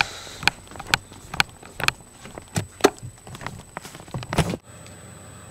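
Footsteps on a hard floor at a walking pace, about two steps a second. They stop abruptly near the end, leaving a quieter steady background.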